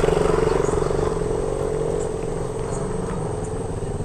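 A car driving past close by, loudest at the start and fading away with a slowly falling pitch, over a steady low engine hum.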